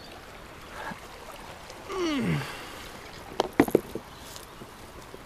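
Steady rush of river rapids in the background. About two seconds in, a short cry slides down in pitch, and around three and a half seconds in come a few sharp clicks or knocks, the loudest sounds.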